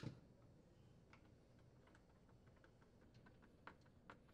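Faint scattered clicks and ticks of a Torx screwdriver and plastic parts as the pump inlet plate screws are threaded into a Frigidaire dishwasher's plastic sump. A sharper click comes right at the start, and a few more cluster after the three-second mark.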